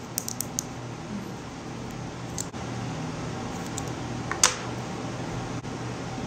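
Steady low hum of room ventilation, with a few small clicks from a concealer tube being handled and opened in the first second and a sharper click about four and a half seconds in.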